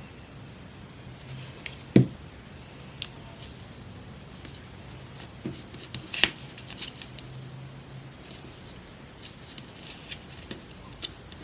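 Scissors snipping paper and paper being handled, a scatter of short clicks and rustles. A thump about two seconds in is the loudest sound, and a sharp click comes about six seconds in.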